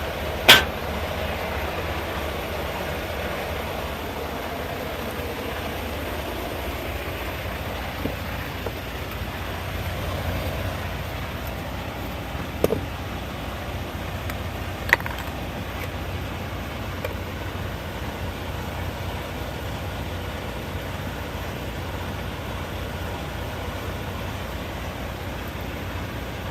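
Steady low hum of an idling vehicle engine, with three sharp clicks or knocks: the loudest about half a second in, and two more roughly twelve and fifteen seconds in.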